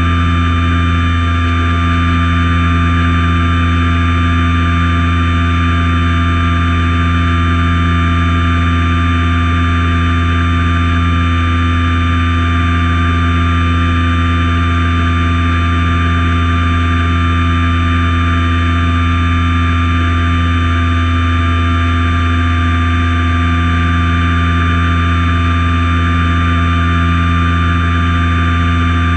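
Light single-engine airplane in flight: its piston engine and propeller drone at a steady pitch, mixed with wind rushing past the wing-mounted camera.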